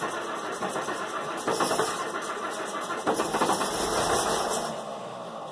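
Old diesel engine of a wheel loader running in the cold after a cold start with the block heater. It swells about three seconds in, then winds down as it stops near the end.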